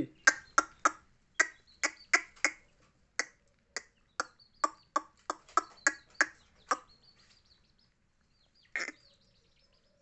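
A quick, irregular run of sharp clicks made by a person, about two to three a second, stopping about seven seconds in, with one more click near the end.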